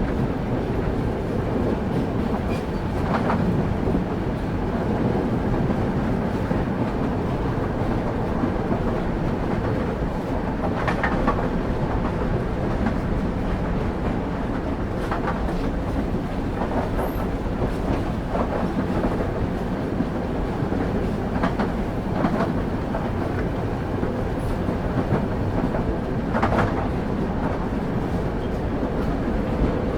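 Steady rumble of a moving passenger train heard from on board, with the clack of wheels over rail joints every few seconds.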